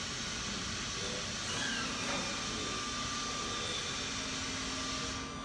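Steady whirring hiss of a roll manipulator's DC-powered hydraulic pump motor running while its control buttons are held, with a faint steady tone joining about two seconds in. It drops away abruptly just before the end.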